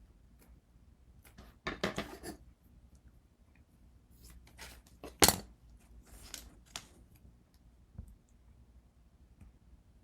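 Hands working with small tools and pieces on a work table: scattered taps, scrapes and rustles, with a sharp click about five seconds in.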